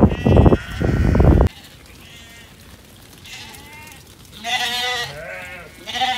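A loud rushing noise stops abruptly about a second and a half in. Then sheep bleat several times, in wavering calls, as the flock runs in.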